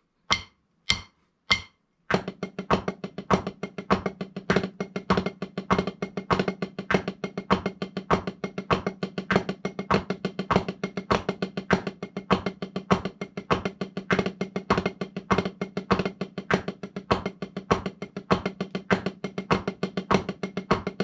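Wooden drumsticks on a rubber practice pad: a few spaced count-in taps, then about two seconds in a steady run of sixteenth-note strokes at 100 BPM, playing four paradiddles, four drag-a-diddles, four paradiddles and four flam-a-diddles.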